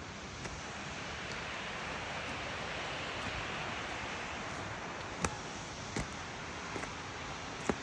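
Waterfall rushing as a steady noise that swells for a couple of seconds, with a few sharp clicks in the second half.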